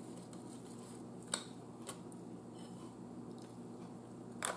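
Quiet eating sounds: a few short wet clicks, a little after a second in, near two seconds and again near the end, from chewing and from fingers pulling apart a piece of meat, over a low steady hum.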